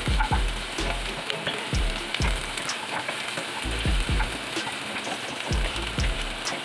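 Chopped onion and garlic sizzling as they sauté in a nonstick pot, with a wooden spoon stirring them and knocking and scraping against the pan about twice a second.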